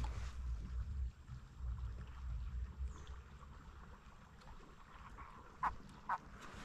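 Low rumbling noise on the microphone with faint water sounds from the kayak, easing after about two seconds. Near the end come two short calls.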